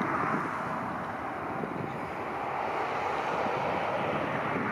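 Boeing 767-300 freighter's twin General Electric CF6-80C2 turbofans at climb power just after takeoff, a steady, even rumble with no distinct tones as the jet climbs away.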